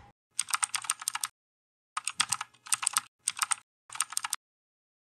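Keyboard typing: several short runs of quick, sharp key clicks, separated by complete silence.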